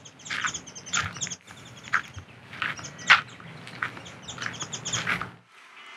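Footsteps walking at a steady pace, about two steps a second, with small birds chirping in quick high series. Both stop suddenly about five and a half seconds in.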